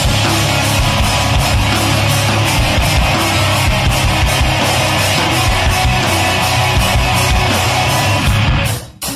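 Loud rock song with guitar and drums, playing steadily; it cuts out for a moment near the end before the drums come back in.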